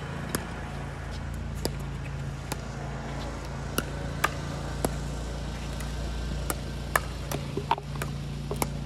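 Pickleball rally: a series of sharp hollow pocks as paddles hit the plastic ball, irregularly spaced and coming faster near the end, over a steady low hum.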